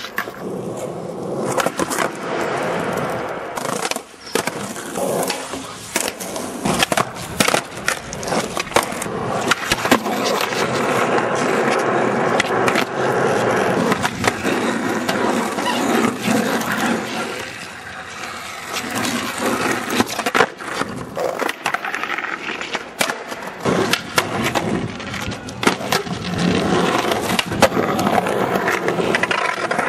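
Skateboard wheels rolling over rough asphalt, with repeated sharp clacks of the board being popped and landed.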